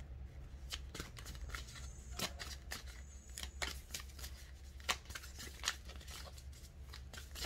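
Tarot cards being shuffled by hand: irregular light snaps and flicks of the cards, over a faint low hum.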